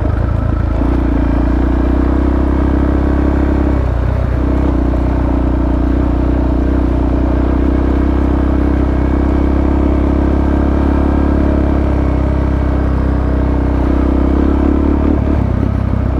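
Supermoto motorcycle engine running steadily under way, with a brief break in its note about four seconds in.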